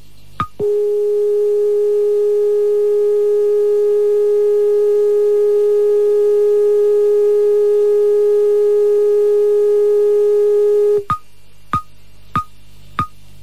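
Rai Radio2's end-of-transmission signal received on AM medium wave. Regular ticking pips, about one and a half a second, stop just after the start. A single steady tone with faint overtones then sounds for about ten seconds, cuts off abruptly, and the ticking resumes.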